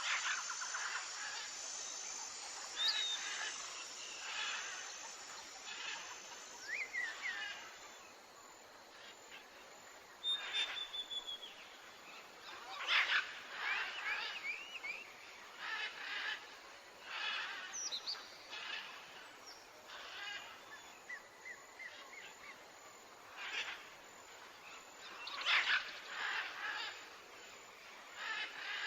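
Mongooses giving short, high chirps and squeaks, some sliding quickly up or down in pitch, repeated every second or two.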